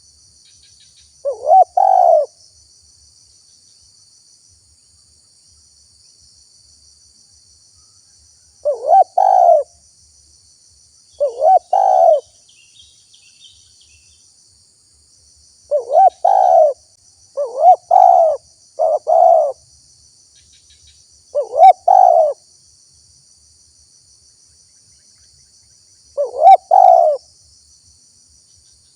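Spotted dove cooing: eight separate phrases, each a short note followed by two longer coos, coming a few seconds apart at uneven intervals. A faint steady high hiss runs behind them.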